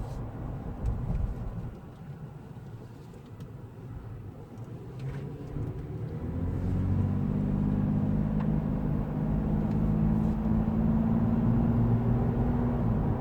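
2017 Toyota 4Runner TRD Pro's 4.0-litre V6, fitted with a TRD Pro intake, running while driving, with a low engine and road rumble. About six seconds in the engine note comes up and grows steadily louder as the truck pulls.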